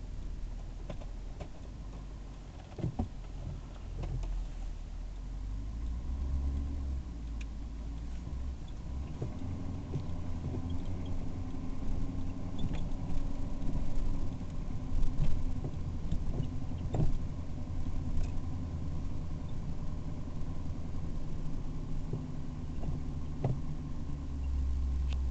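Car heard from inside the cabin while driving on a snow-covered road: a steady low engine and road rumble, with a few short knocks from bumps.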